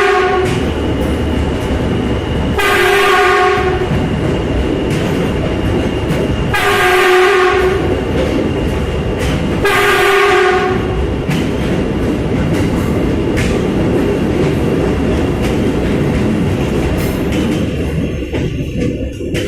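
Train running with a continuous loud rumble while its horn sounds three times, each steady blast about a second long and a few seconds apart, with the tail of an earlier blast just at the start. The rumble thins out near the end.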